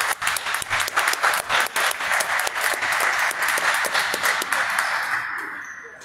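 Applause: many hands clapping quickly and densely in a gym, dying away near the end.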